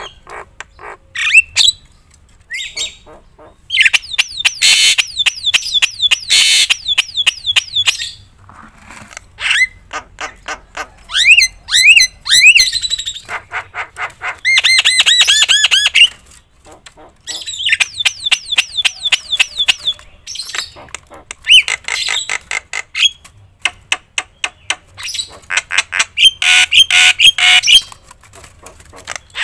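Javan myna (jalak kebo) singing loudly in bursts of rapid, repeated sharp chirps and hooked, rising whistled notes, with short pauses between the bursts.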